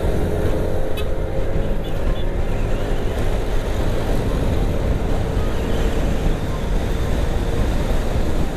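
Yamaha NMAX scooter's 155 cc single-cylinder engine droning under acceleration, with heavy wind noise buffeting the microphone as the speed builds.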